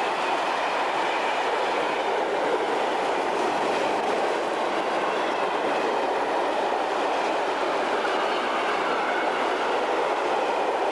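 Freight train of tank wagons passing close by at speed, with the steady noise of its wheels running on the rails.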